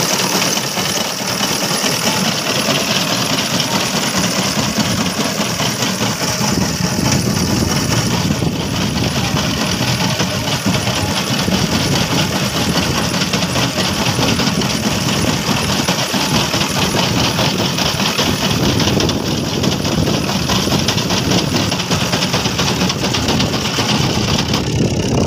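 Engine of a wheat reaper running steadily as it cuts a standing wheat crop.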